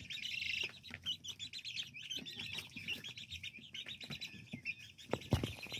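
Three-week-old guinea fowl keets and young chickens peeping, many quick high chirps overlapping, with scattered light taps and a low thump about five seconds in.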